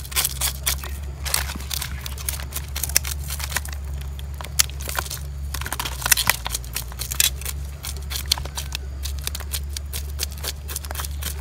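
A knife scraping the scales off climbing perch, a fast irregular run of scratchy clicks, over a steady low hum.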